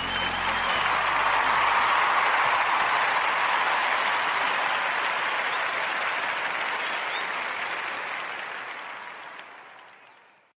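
Applause from an audience, swelling in the first couple of seconds and then slowly fading out to silence.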